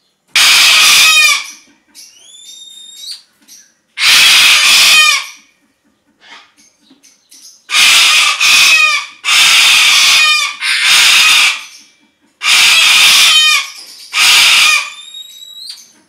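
A white parrot, the aviary's "noisy girl", gives a run of loud, harsh screeches, about seven of them, each about a second long. Thin rising whistles from other small birds come between them.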